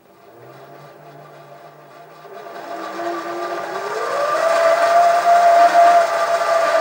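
LittleMachineShop Model 4100 7x12 High Torque minilathe starting up from its electronic control panel: the motor and spindle whine starts low and quiet, rises in pitch and loudness as it speeds up over the first four seconds or so, then runs steadily at the higher speed.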